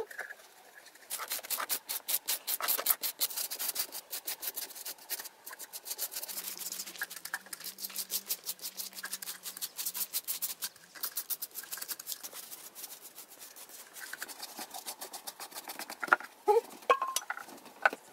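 Stiff handmade fibre brushes scrubbing black paint onto the rough surface of a sculpted statue, in quick scratchy strokes.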